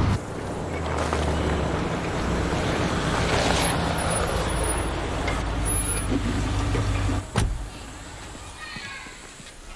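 Flatbed work truck's engine running as it drives up and pulls to a stop, with a broad hiss swelling about three to four seconds in. About seven seconds in there is a sharp knock and the engine sound drops away.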